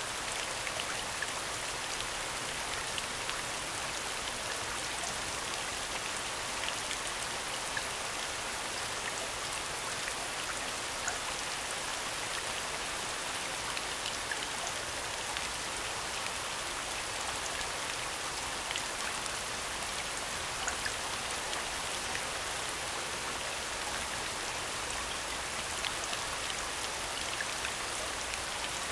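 Recorded rain soundscape: a steady, even hiss of falling rain with scattered individual drop ticks.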